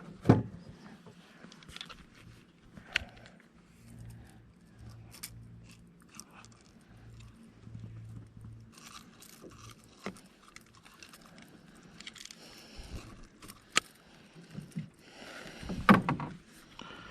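Scattered clicks, scrapes and knocks of fishing tackle being handled in a small boat, with a louder knock near the start and another near the end. A faint low hum runs for a few seconds in the middle.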